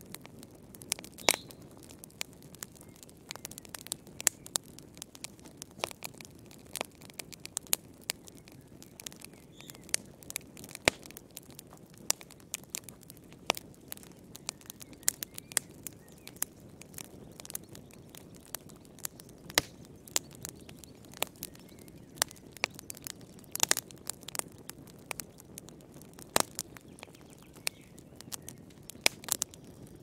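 Log fire crackling in a fireplace: irregular sharp pops and snaps, several a second at times, over a steady low rumble of the burning wood.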